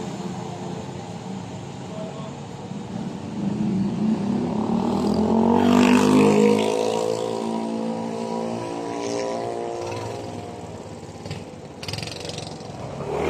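Motor scooter engines passing along the street; one comes close, its engine note rising and growing loud about six seconds in, then dropping and fading as it goes by.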